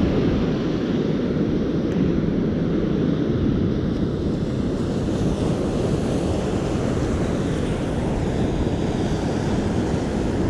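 Steady wash of breaking ocean surf mixed with wind rumbling on the microphone, an even low noise with no distinct events.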